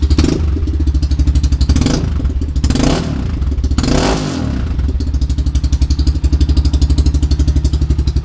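Honda ATC 200X three-wheeler's single-cylinder four-stroke engine idling through a 45-degree exhaust tip that aims the exhaust at the ground to cut the noise. The throttle is blipped a few times about two to four seconds in, then it settles back to idle and cuts off at the very end.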